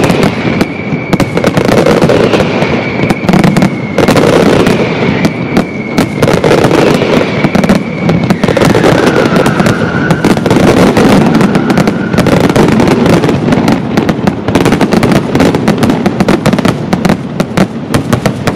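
Pirotecnia Caballer castillo aerial fireworks display: a dense, unbroken barrage of shell bursts and crackling stars, many reports a second. A thin whistling tone runs underneath and drops in pitch about halfway through.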